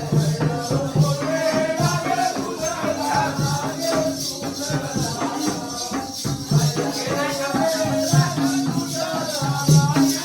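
Jakhadi folk song: a man's voice sings a wavering melody over a steady drum beat, with a bright rhythmic jingling, like shaken bells or a rattle, keeping time.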